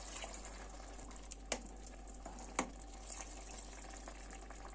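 Water poured from a drinking glass into a pot of vegetable and bulgur stew, a steady splashing pour. Two sharp clicks stand out about a second apart in the middle.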